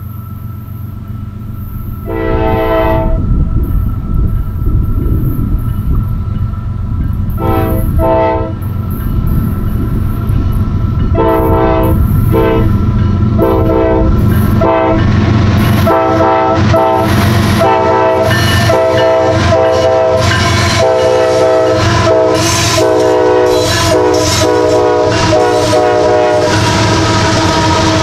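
The Nathan K5LA five-chime air horn of a CSX GE ES44AH locomotive giving a horn show: a short chord about two seconds in, a quick pair of blasts, then a long run of rapid short toots that stops near the end. Under it, the diesel engines and wheels of the three-unit locomotive consist rumble steadily, growing louder as the train runs by.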